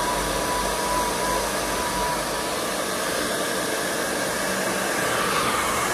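Handheld hair dryer running steadily: a constant rush of air with a thin whine, the whine shifting slightly near the end.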